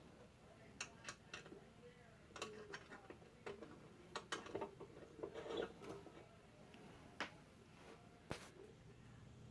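Faint, scattered small metallic clicks and ticks as the 7/16-inch nuts are put back onto the bolts that hold an annealing machine's indexing wheels.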